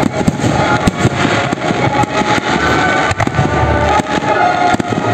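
Aerial fireworks shells bursting one after another, with many sharp bangs and crackles in quick succession.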